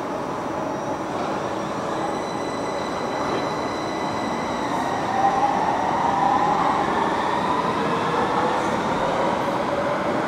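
Metro train running with a steady rumble and a high electric whine. From about halfway through, a tone rises steadily in pitch.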